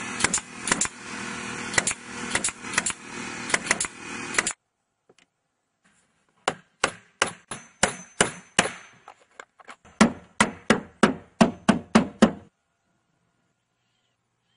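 Nails being driven into wooden boards: several sharp strikes over a steady noise for the first few seconds. After a short pause come two runs of even strikes, about three to four a second.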